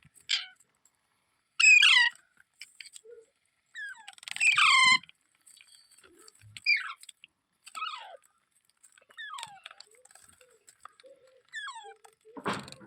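Parrot calling in a string of short, shrill screeches, each sliding downward in pitch; the loudest come about two and five seconds in. A brief rustling noise comes near the end.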